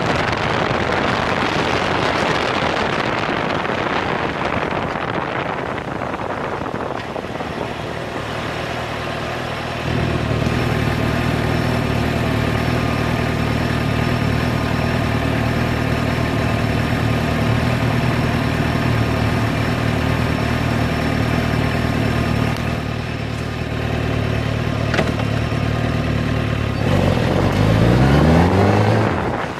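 Wind rush over the microphone fades as a Suzuki GSX-R600's inline-four engine slows to a stop. The engine then idles steadily. About three seconds from the end it revs up, rising in pitch through the gears as the bike pulls away.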